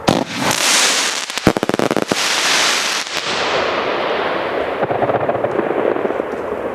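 Ground firework fountain spraying sparks with a loud, even hiss. A quick run of sharp crackles comes about a second and a half in, with one more crack near three seconds. After that the hiss turns duller and carries on steadily.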